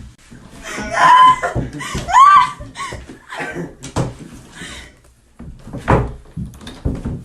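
Two loud, high-pitched shrieks from a child about a second apart, then a few sharp thumps of a door being pushed and banged in a struggle over it.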